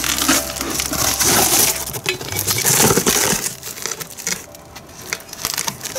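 Packing material rustling and crunching as a fireclay planter is unwrapped, loudest over the first three or so seconds, then quieter with a few light clicks.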